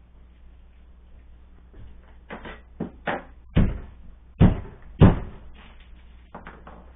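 A run of about ten thuds and knocks on a cutting board as food is worked by hand on the counter. They begin about two seconds in, and the three heaviest come a little under a second apart in the middle.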